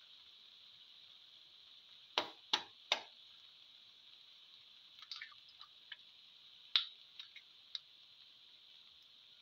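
Eggs frying in hot oil in a pan: a faint steady sizzle with scattered pops and crackles, three sharp pops in quick succession about two seconds in.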